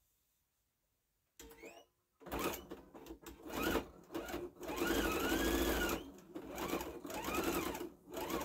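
Electric sewing machine stitching through fabric in several runs, starting about two seconds in, its motor whine rising and falling as it speeds up and slows down.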